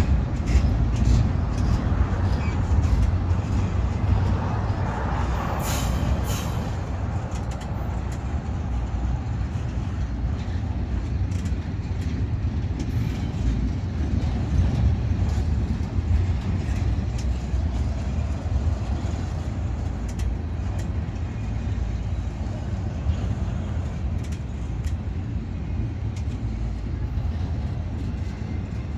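Double-stack intermodal freight train rolling past: a steady low rumble of steel wheels on the rails, with scattered clicks and clanks from the well cars, easing slightly toward the end.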